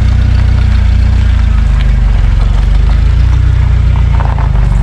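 Vehicle engine idling steadily, loud and close, with a deep, even low-pitched drone.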